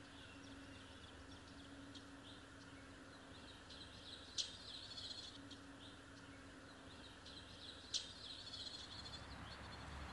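Faint birds chirping, with a low steady hum underneath and two sharp clicks, about four and eight seconds in.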